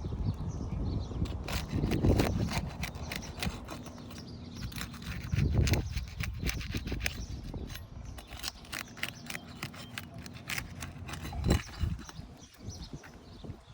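Scraping and clicking of hand work on asphalt 3-tab roof shingles as a wind-damaged shingle is worked loose for repair, with a few dull thumps.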